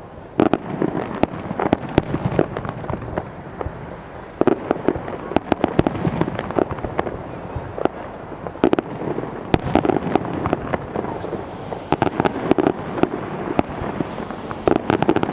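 Fireworks display: shells bursting with many sharp bangs and crackles in quick succession.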